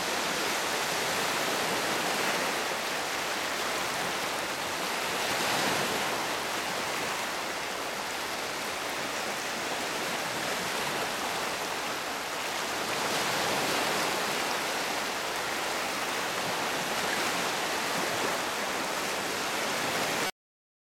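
Shallow lake waves washing over and around low shoreline rocks: a steady rushing with gentle swells every several seconds. It cuts off abruptly near the end.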